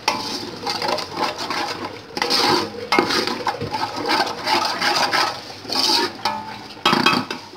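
Wooden spatula stirring and scraping yogurt and fried onions around a metal pot in irregular strokes, over the sizzle of hot oil.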